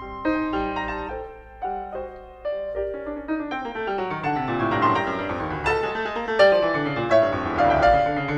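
Background piano music: single notes and light chords at first, growing about four seconds in into fuller, denser passages of rolling chords.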